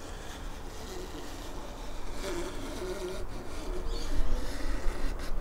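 Scraper drawn over a wooden radio cabinet top, scraping off old finish softened by paint stripper; quiet, rough scraping.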